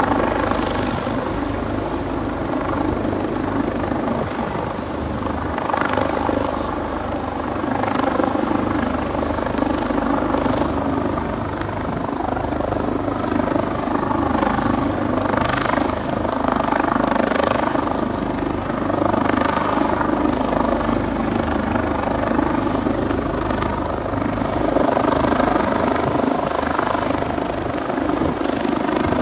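Leonardo AW139 twin-turbine helicopter hovering low overhead, a steady loud rotor and turbine noise whose loudness swells and eases every couple of seconds.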